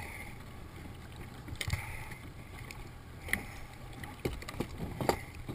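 Scattered knocks and bumps of dive gear being handled on a plastic kayak, about five sharp ones, muffled by a waterproof camera housing, over a faint steady low hum.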